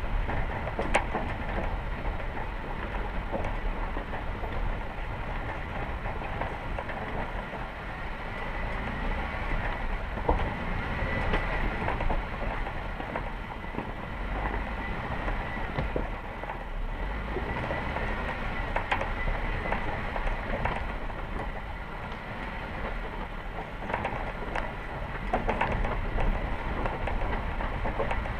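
Vehicle driving over rough ground: a steady rumble with scattered rattles and knocks.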